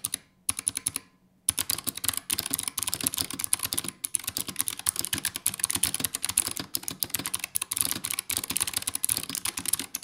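Typing on a keyboard with Razer Purple clicky optical switches: each keystroke a sharp click. A few keystrokes come first, then a short pause, then from about a second and a half in a fast, continuous run of clicky keystrokes.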